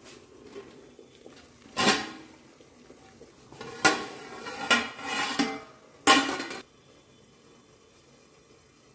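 Aluminium steamer lid clanking and scraping against the rim of a perforated aluminium steamer pot as it is lifted off. There are five or so sharp metallic clanks with a brief ring, the last about six seconds in.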